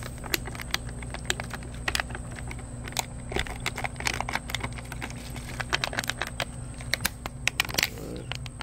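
Chicken wings sizzling on a charcoal grill: irregular sharp crackles and pops, several a second, as pineapple-juice marinade is squirted over them from a squeeze bottle.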